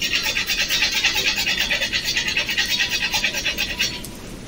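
Nutmeg being grated on a stainless-steel hand grater, a run of quick, even rasping strokes that stops about four seconds in.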